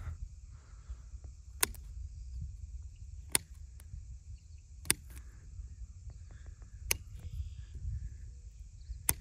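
Bypass hand pruners snipping small dormant branches off a young apple tree: five sharp snips, each a second and a half to two seconds apart.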